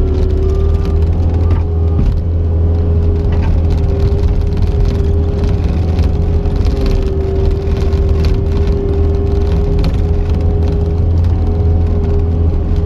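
Cat 279C compact track loader's diesel engine running steadily under load, with a deep hum and a steady whine above it.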